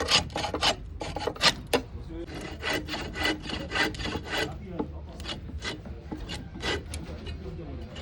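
Quick, repeated scraping strokes of a hand tool across wood, about three or four a second, with a short pause about two seconds in.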